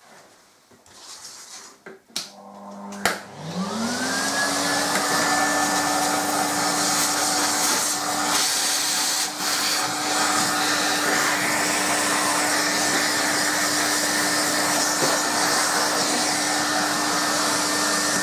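Vacuum cleaner switched on with a click about three seconds in, its motor whine rising to speed and then running steadily as it sucks dust off the back of a desktop computer case. The pitch starts to fall at the very end as it is switched off.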